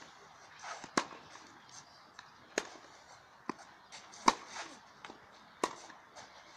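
Tennis balls struck by rackets in a baseline rally on a clay court: four sharp hits, one every second and a half or so, with fainter knocks of the ball bouncing between them.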